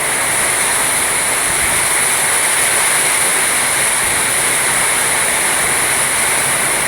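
Heavy tropical rain pouring down in gusting storm wind, a loud, steady rushing hiss.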